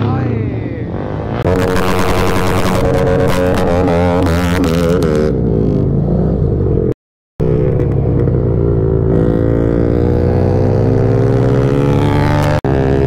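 Motorcycle engines revving and accelerating in rising and falling surges, heard from a camera on a moving motorcycle as other bikes ride alongside. The sound drops out completely for about half a second just after the middle.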